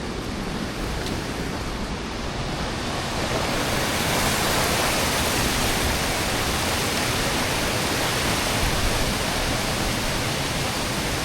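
Waterfall pouring: a steady, even rush of falling water that grows louder and brighter about three to four seconds in, then holds.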